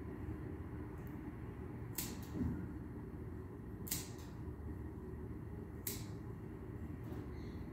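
Grooming scissors snipping through a Persian cat's long fur: three crisp snips about two seconds apart, over a steady low hum.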